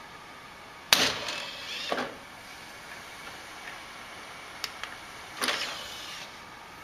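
A loud knock and clatter about a second in, then a couple of small clicks and a short mechanical whir near the end as a desktop computer's DVD drive tray is ejected.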